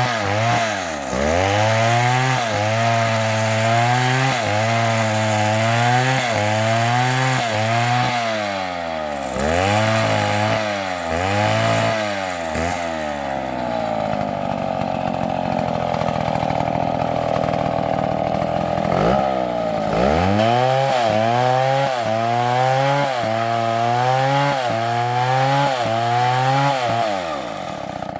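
Two-stroke chainsaw cutting wood, its engine speed dipping and climbing back again and again as the chain works through the cut. About halfway through it runs at a steady high pitch for several seconds, then it goes back to dipping and recovering before the revs fall away near the end.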